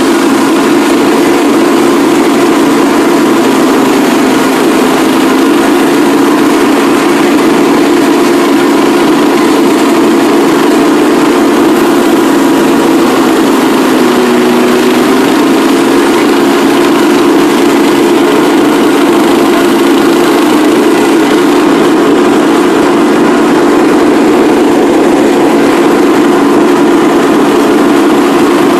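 Riding lawn mower's engine running steadily as the mower drives across the yard, with a brief dip in pitch about halfway through.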